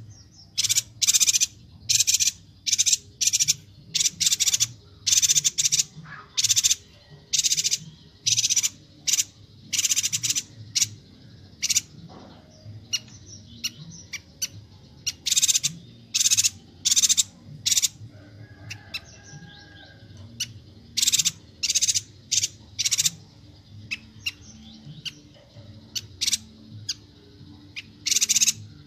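Bornean yuhina giving a rapid series of short, sharp, high-pitched chirping calls, about one to two a second, with a quieter gap around the middle before the calling picks up again.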